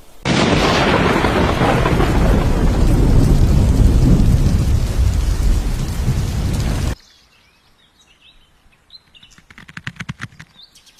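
Heavy rain with rumbling thunder, cut off abruptly about seven seconds in. Then come faint bird chirps and a quick run of clicks near the end.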